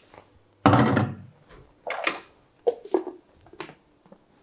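Kitchen handling: a stainless saucepan and spoon clank once, loudest, with a short ring. Then come several sharp plastic clicks and knocks as the lid is pressed onto a countertop blender jug.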